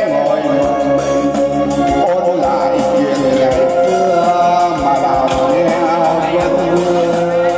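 A man singing into an amplified microphone over instrumental accompaniment, with long held, wavering notes.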